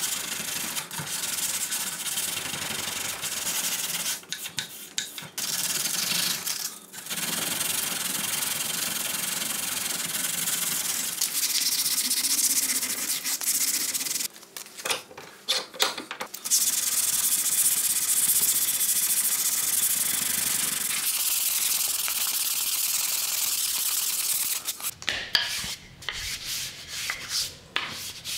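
Sandpaper rubbed by hand along an oak axe handle in fast back-and-forth strokes, a dry scratchy hiss. It stops briefly a few times and turns uneven near the end.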